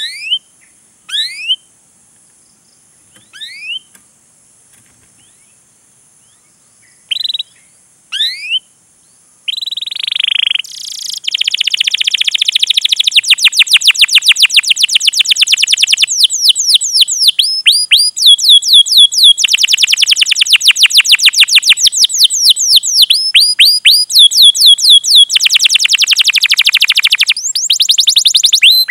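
Domestic canary singing: for the first ten seconds or so, single sharp rising 'cuit' chirps with pauses between, then long loud phrases of fast repeated chirp notes strung into trills.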